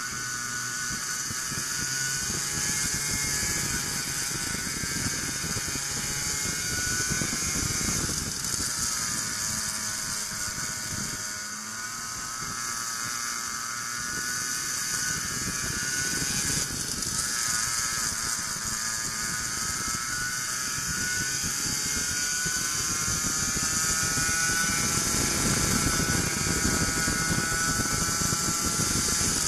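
Racing go-kart engine heard onboard at speed, its pitch repeatedly climbing as it accelerates and dropping back as the throttle is lifted, most deeply around a third of the way through. A steady rush of wind noise runs underneath.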